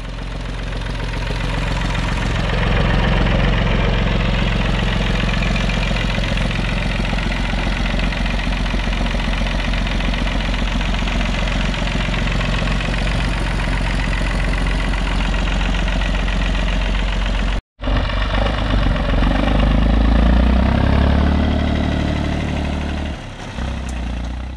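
A small tractor's engine running steadily. After a brief cut about eighteen seconds in, an engine revs up and settles back down near the end.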